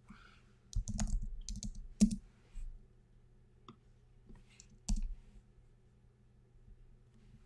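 Keystrokes on a computer keyboard: a handful of separate taps with pauses between, spread over the first five seconds, the loudest about two seconds in.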